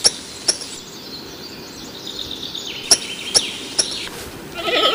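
Small songbird singing, with high whistled notes and several sharp chirps. A louder, lower animal call begins near the end.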